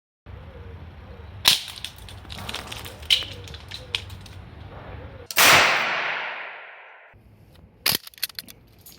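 Homemade airsoft claymore going off: a sharp bang about a second and a half in, scattered small clicks and pops, then a louder blast that dies away over about two seconds, and another sharp crack near the end.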